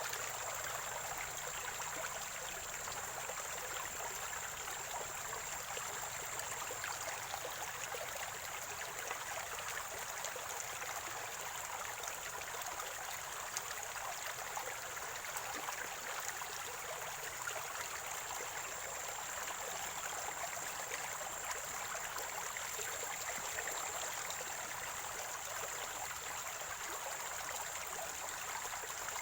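Water from a natural spring gurgling and trickling in a steady, unbroken flow, with a faint steady high-pitched tone above it.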